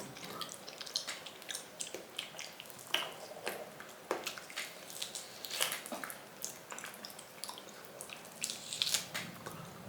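Close, wet chewing with irregular mouth clicks and smacks.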